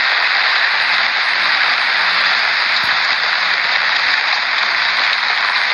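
Steady, loud rushing noise of a whirlwind's storm wind, with no let-up.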